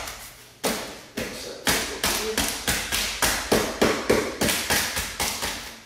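Hands striking and knocking on the hard plastic front-end panel of a Tesla Model 3. The sharp taps and thumps come in a quick, irregular run of about twenty, up to some four a second.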